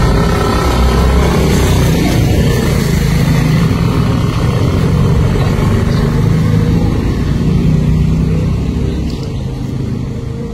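A motor vehicle's engine running nearby as a steady low rumble, its pitch shifting slightly, fading a little near the end.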